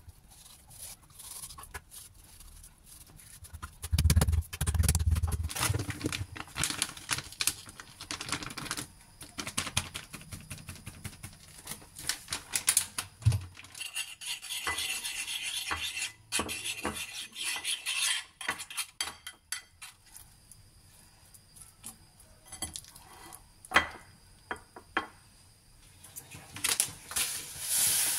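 Food-preparation handling sounds: a knife slicing raw chicken breast on a wooden cutting board with a few heavier knocks, then a spoon stirring and scraping flour and water on a ceramic plate, clinking against it.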